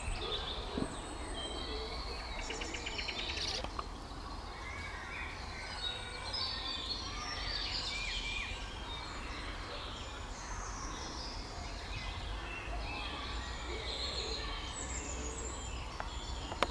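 Several woodland birds singing and calling at once, a mix of short chirps, whistled phrases and a brief fast trill, over a steady low rumble.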